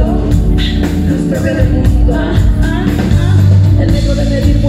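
Live band playing: drum kit, electric bass guitar and keyboards with female voices singing into microphones. A steady beat runs under sustained bass notes.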